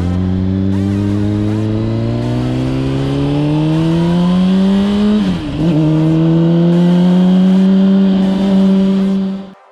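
2005 Honda CBR600RR's inline-four engine pulling hard under acceleration, its pitch rising steadily. About five seconds in it drops sharply on an upshift, then climbs again in the next gear before cutting off suddenly.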